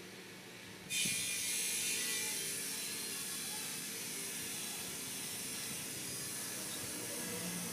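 A loud, steady hiss starts abruptly about a second in and holds on evenly.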